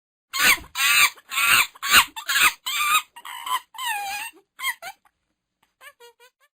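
Monkey calling: a rapid run of about nine loud, short, wavering calls, followed near the end by a few faint short calls.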